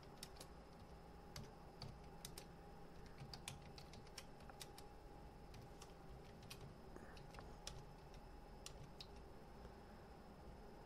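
Faint computer keyboard typing: irregular keystrokes as lines of code are entered.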